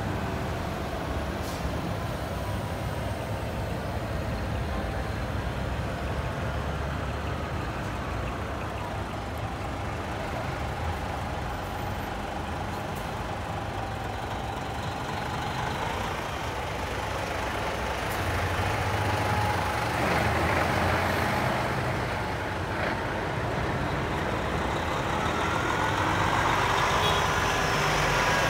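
Heavy trucks' diesel engines running as the trucks pass slowly one after another, louder about two-thirds of the way through and again near the end as a truck comes alongside.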